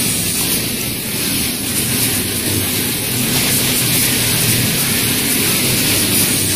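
Steady machinery noise of a sewing factory floor: a low hum under an even hiss, with no clear rhythm or break.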